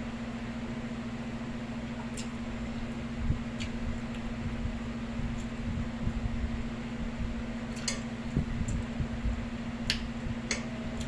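A person eating buffalo wings: soft chewing and handling sounds with a few sharp little clicks, over a steady low electrical hum.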